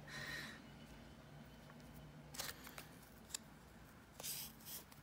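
Faint handling noises of stranded embroidery floss being looped through a thread drop: a few soft brief rustles and one light click.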